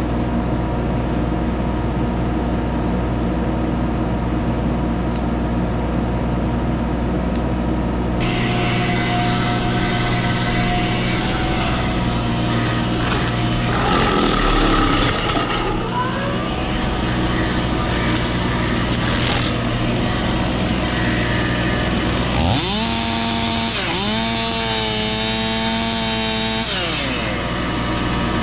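Mini excavator running with a hydraulic brush-cutter mulching head, a steady machine drone. The sound brightens abruptly about eight seconds in. Near the end a whining pitch drops and recovers several times.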